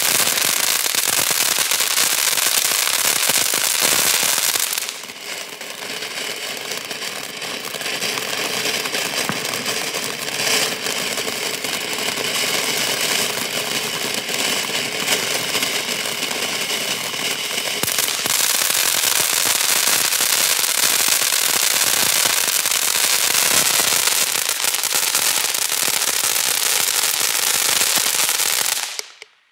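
Fox Fireworks 'Ftn Dew' ground fountain burning: a steady, loud hissing spray of sparks full of fine crackling. It drops back briefly about five seconds in, carries a faint whistle through the middle stretch, and cuts off suddenly near the end as the fountain burns out.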